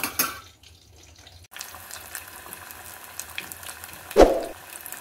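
Chicken nuggets deep-frying in a pot of hot oil: a steady hissing sizzle that starts about a second and a half in. A brief loud knock-like sound comes about four seconds in.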